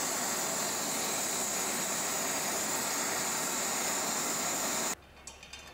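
Butane torch fed with compressed air hissing steadily as its flame heats a steel tool bar to braze on a carbide tip; the hiss cuts off abruptly about five seconds in.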